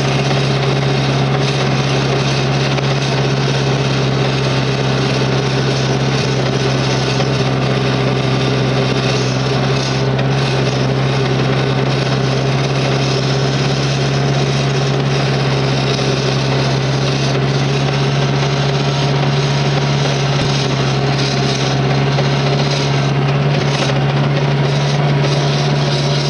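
Gehl 4400 skid steer engine running steadily under the operator's seat, with a constant low drone and rattling machine noise; the engine note rises a little near the end.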